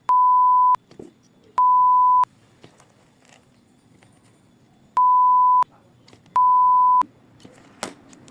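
Four identical electronic beeps, each a steady pure tone lasting well over half a second, coming in two pairs with a pause of about three seconds between the pairs. A short click follows near the end.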